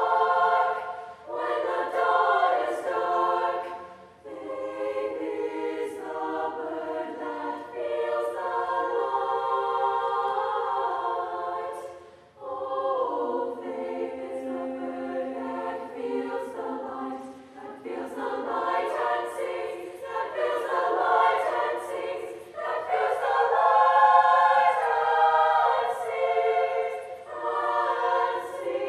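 Women's choir singing a sustained choral piece in several voice parts, with short breath pauses between phrases about four and twelve seconds in.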